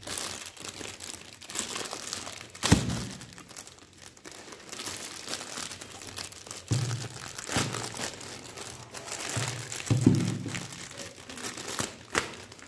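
Clear plastic bag crinkling and rustling as hands unwrap a corded computer mouse and its coiled cable, with a sharp knock or snap of handling about three seconds in and another near the end.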